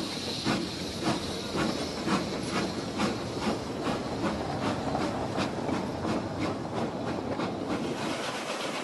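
Eureka & Palisade No. 4, an 1875 Baldwin 4-4-0 wood-burning steam locomotive, pulling its train away from a stop, its exhaust beating about twice a second over a bed of steam hiss and rolling cars. The beat fades near the end.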